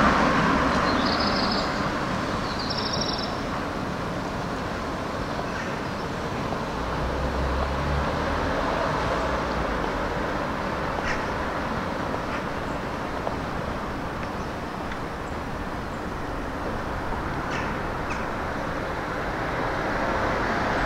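Street ambience: a steady hum of traffic, with a passing car fading away in the first couple of seconds. Two short, high bird calls come about one and three seconds in.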